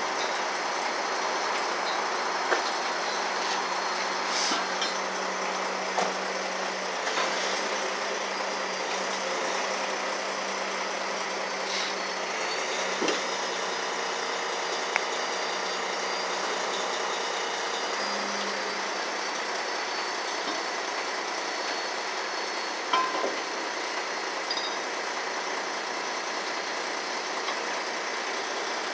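Heavy-duty tow truck running steadily while its underlift boom is worked, with a few sharp metallic clicks and a faint high whine for a few seconds near the middle.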